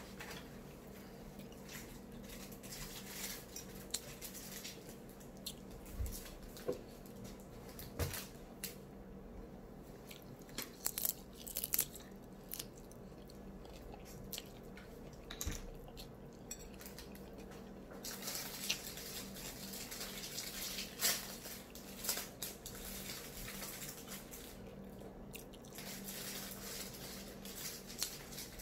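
A person biting and chewing an egg roll, with many small irregular mouth clicks and a few soft knocks.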